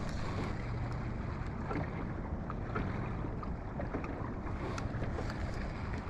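Gusty wind buffeting the microphone over water lapping against a kayak hull, with scattered light ticks.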